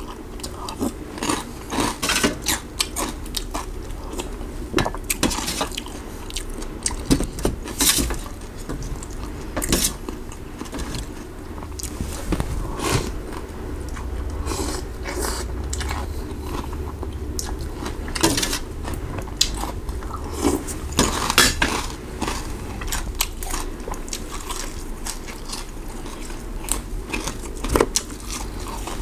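Close-up eating of noodle soup: a metal spoon clinking and scraping on a steel tray, with slurping, chewing, and bites into raw vegetables, as a string of sharp clicks and short bursts over a low steady hum.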